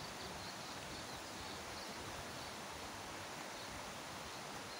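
Steady rush of a small river running over a rocky riffle, with faint high chirps repeating through it.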